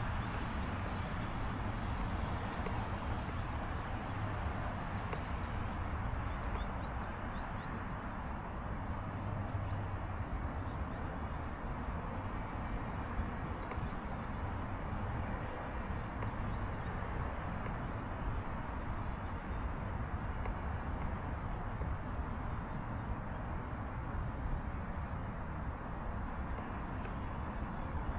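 Steady wind buffeting the microphone: a continuous low rumbling hiss with no clear motor tone.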